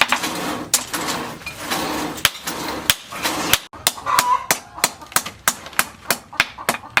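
Hammer blows on leaf-spring steel being forged on an anvil, a run of sharp strikes that quickens to about three a second halfway through.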